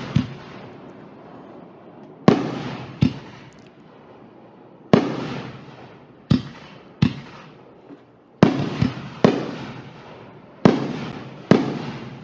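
Fireworks going off: a string of about nine sharp bangs, unevenly spaced roughly a second apart, each fading out over about a second.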